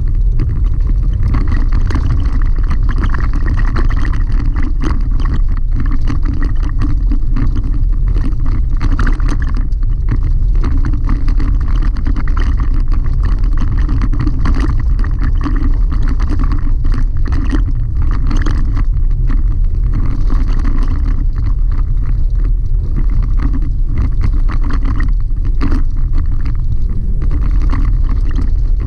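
Cab noise of a Chevrolet Colorado ZR2 pickup driving on a gravel road: a steady, loud low rumble of engine and tyres, with frequent small clicks and rattles from the rough surface.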